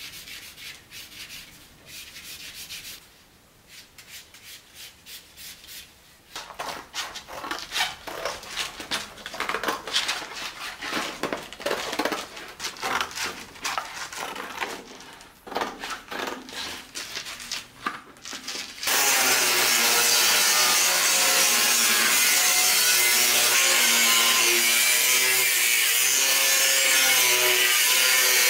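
A felt marker scratching lines on cardboard, then a knife cutting through cardboard in short strokes. About two-thirds in, an angle grinder starts cutting sheet steel with a loud, steady grinding.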